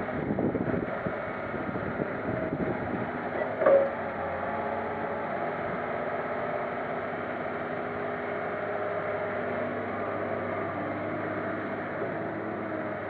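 Komatsu crawler excavator's diesel engine running steadily as the machine works, swinging and lifting a loaded bucket of soil over a dump truck, its pitch shifting a little with the load. A brief loud knock a little under four seconds in.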